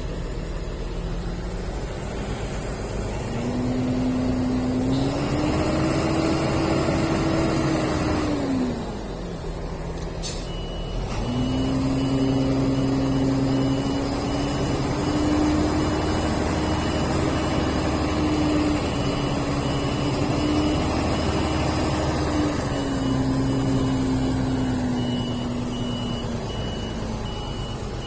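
Road vehicle engine running, its pitch climbing, holding and dropping several times as it speeds up and slows. From about ten seconds in, a steady train of short high beeps sounds over it.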